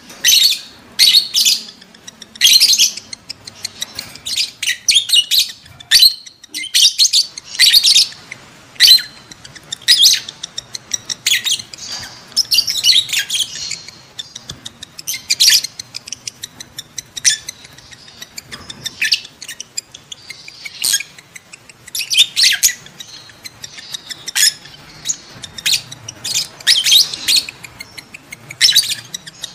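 Lovebirds chattering in rapid, shrill chirps and squawks, coming in irregular clusters with short gaps between them: the calls of lovebirds in breeding condition.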